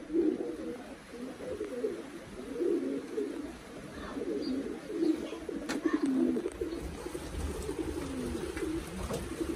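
Racing pigeons cooing in their loft: several birds' low, rolling coos overlapping without a break.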